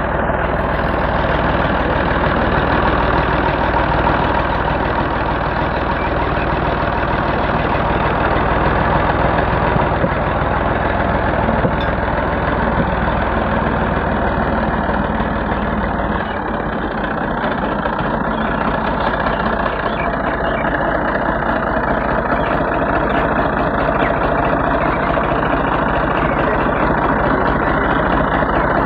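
Old diesel farm tractor engine running steadily at close range. Its deep low hum drops away about halfway through while the engine keeps running.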